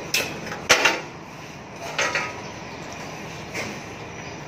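Metal clanks of a bus wheel and its clamping hardware going onto a wheel balancer's shaft: a sharp clank just after the start, a louder double clank just before the first second, then lighter knocks around two seconds and three and a half seconds in.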